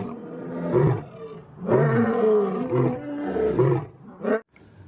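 Male lion roaring: a bout of long roars, each about a second, breaking into shorter, quicker grunts near the end.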